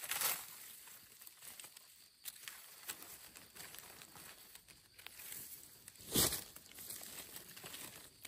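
Crackling and rustling of dry leaf litter and brush being moved through, with scattered small crackles and one brief louder rustle about six seconds in.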